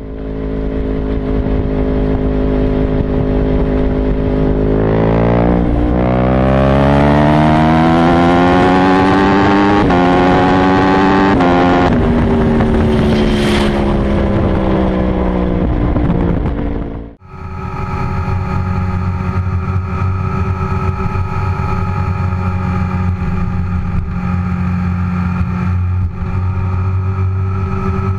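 An engine pulling hard at highway speed, its pitch climbing with a few brief breaks at the gear shifts, then falling as it slows. After a sudden cut, a sport bike's engine holds a steady note at cruising speed.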